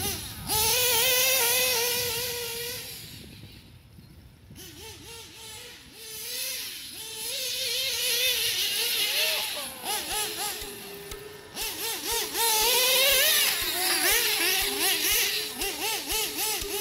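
Modified LRP .32X two-stroke nitro engine of a 1/8-scale Kyosho Inferno ST truggy, running through a Novarossi tuned pipe. It revs hard in repeated full-throttle bursts, its high pitch rising and falling, and fades for a moment around four seconds in before coming back loud.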